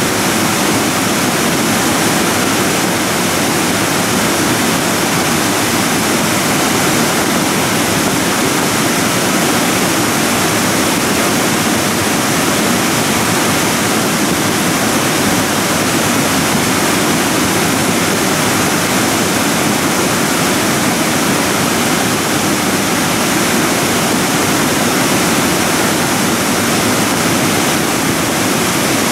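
Debris flow of mud, gravel and stones from moraine deposits moving down a gully: a loud, steady rushing noise with no single rock impacts standing out.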